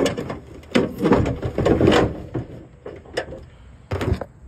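Knocks, clunks and scraping as a 1999 Ford Mustang's tilt-forward hood is unlatched and raised by hand, with one sharp knock near the end.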